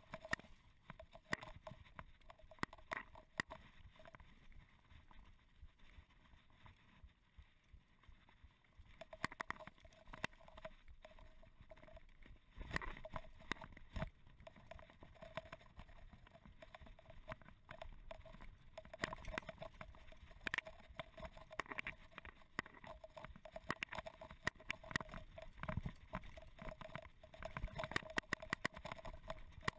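Mountain bike rolling downhill over a rough dirt trail: irregular rattles, clicks and knocks from the bike, with tyre noise on the ground. The rattling is lighter for a few seconds near the start and gets busier from about twelve seconds in.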